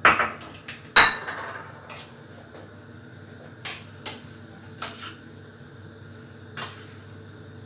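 A bowl is set down on a plate with two loud clinks that ring briefly. Then a spoon knocks against a steel cooking pot half a dozen times, one soft knock at a time, as the bulgur pilaf is stirred.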